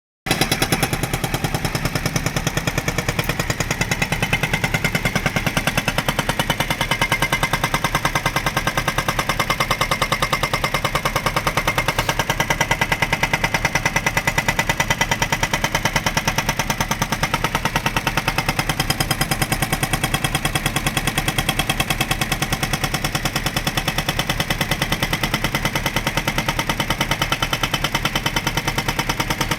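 JCB 3DX backhoe loader's hydraulic breaker hammering continuously: a loud, rapid, even stream of blows.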